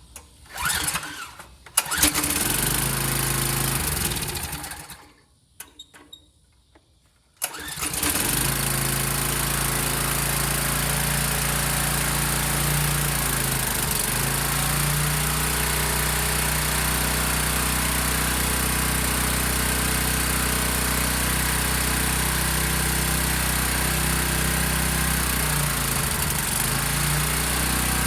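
Briggs & Stratton small engine on a pressure washer being pull-started on fresh gas: it fires about 2 s in, runs for a couple of seconds and dies away, then catches on the next pull about 7.5 s in and keeps running steadily.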